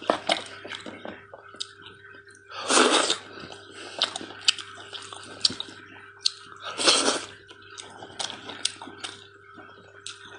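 Close-up wet chewing and lip-smacking of someone eating tender cooked lamb neck meat, many small clicks throughout, with two louder rushes of noise about three and seven seconds in.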